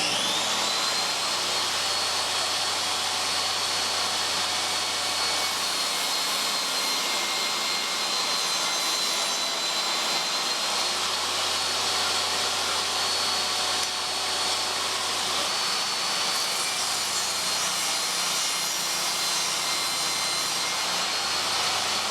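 DeWalt DWE7485 8¼-inch portable table saw motor switching on and spinning up with a quickly rising whine, then running steadily at full speed with a high, even whine.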